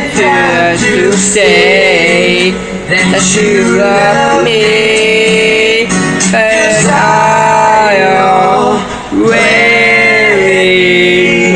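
Music with a man's voice singing long held notes that slide between pitches, over steady instrumental accompaniment.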